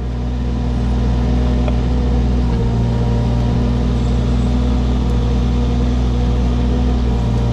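Diesel engine of a compact earthmoving machine running steadily at a constant speed, with a deep even drone. It comes up over the first second, then holds level without revving.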